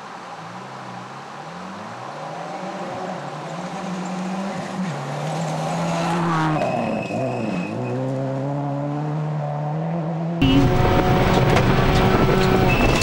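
Subaru Impreza rally car's turbocharged flat-four engine approaching at speed, its pitch climbing and dropping back several times as it shifts up through the gears, then sweeping past with a falling pitch a little past halfway. About ten seconds in, the sound cuts to inside the car: louder engine running with heavy road noise.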